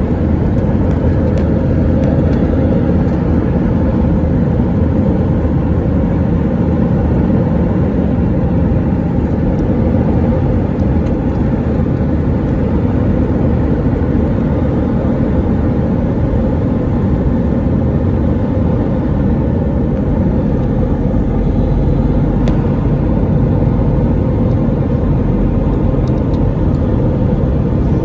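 Steady, loud drone of an Airbus A320 in flight, its engines and airflow heard as an even low rumble that does not change.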